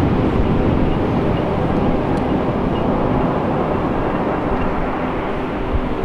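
Ocean surf breaking on the shore as a steady rush, mixed with heavy wind rumble on the microphone.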